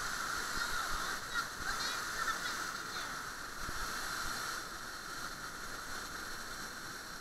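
Rushing stream water pouring over rocks and a small waterfall, a steady even rush.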